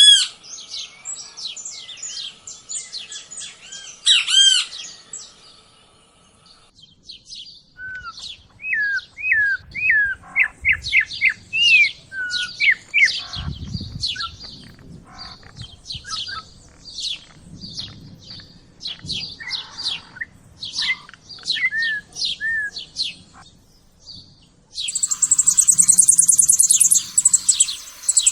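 Songbirds singing, with several different songs one after another. Rapid high notes come first. From about 7 s a bird gives short hooked whistles among varied chirps. About 25 s in, a dense, rapid, high buzzy trill starts suddenly.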